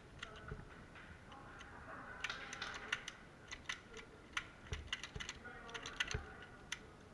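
Faint, irregular sharp clicks and snaps of airsoft gunfire, single shots and short quick runs, with distant voices between them.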